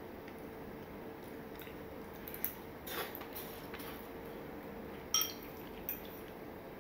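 A metal fork clinking against ceramic dishes: a few soft taps, the loudest about five seconds in with a short ring. A faint steady hum runs underneath.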